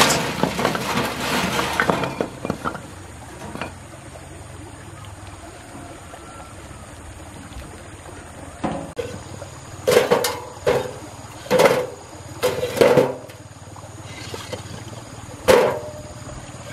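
Red clay bricks clattering into a metal wheelbarrow in a dense burst near the start. Later come about seven separate sharp brick-on-brick clinks as bricks are tossed onto a pile.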